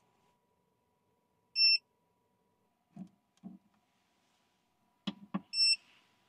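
EcoFlow Delta 2 portable power station giving two short electronic beeps about four seconds apart as a lantern's USB charging cable is connected to it. Between the beeps come two soft knocks and then two sharp clicks as the unit and its ports are handled.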